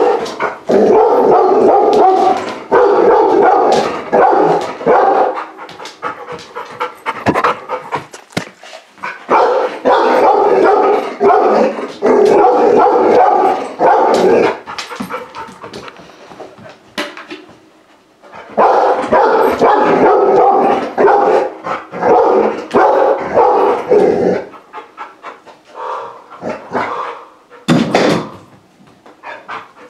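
Large-breed puppy barking at a mounted kudu head on the wall, in three long bouts of rapid barks with short pauses between.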